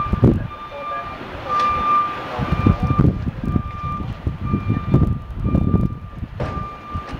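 Vehicle backup alarm sounding, a repeated high beep of steady pitch, over irregular low rumbling.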